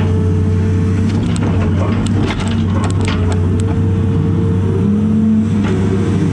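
Cat 330 excavator's diesel engine running steadily, heard from inside the cab, with a hydraulic whine whose pitch shifts as the arm and bucket move. A scatter of knocks and rattles comes in the middle.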